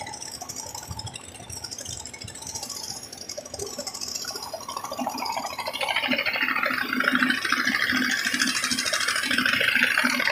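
Engine of a river sand-suction pump running with a steady rattling buzz, growing louder about six seconds in.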